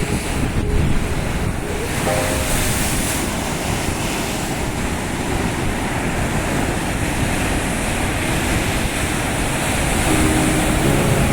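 Heavy Atlantic storm surf: a continuous roar of breaking waves, with wind buffeting the microphone.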